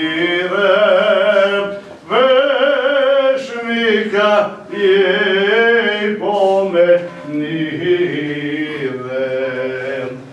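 An Eastern Orthodox priest's male voice chanting a funeral prayer in Romanian, in phrases of long held notes with a wavering vibrato and brief breaks between them.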